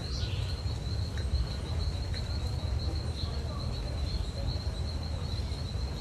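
An insect trilling steadily at one high pitch over a low, even background rumble.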